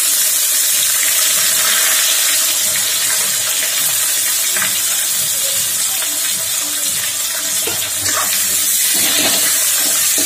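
Sliced onions sizzling in hot oil in a kadhai: a loud, steady frying hiss that starts as the onions hit the oil.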